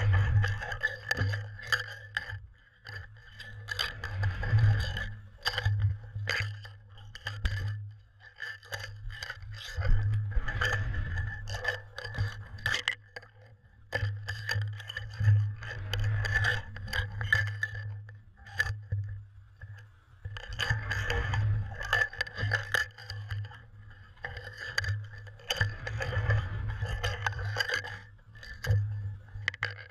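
Muffled scraping and clicking of a cod jigger with a GoPro camera housing mounted on it, jerked through the water in surges every few seconds, over a steady low hum.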